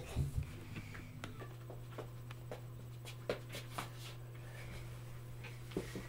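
Faint rustles and scattered light knocks of a child moving about in a small room, over a steady low hum that comes in about a second and a half in.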